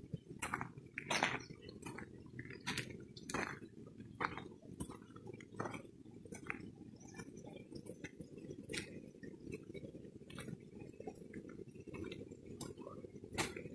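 Footsteps crunching on a stony dirt road at an even walking pace, about one step every three quarters of a second, louder in the first few seconds.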